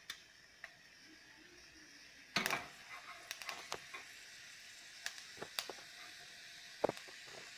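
Chana dal and urad dal frying in hot sesame oil with popped mustard seeds: a faint steady sizzle that grows louder about two and a half seconds in, with scattered sharp pops and crackles.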